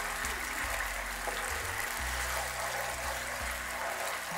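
Background music with a deep bass line that changes note every second or so, over a sauce bubbling as it simmers in a frying pan.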